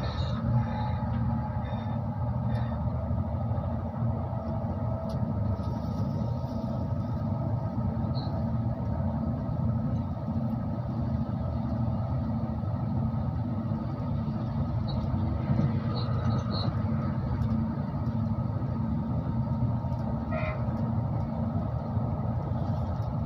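Passenger train running, heard from inside the carriage: a steady rumble of wheels on the rails with a constant motor hum and occasional faint clicks.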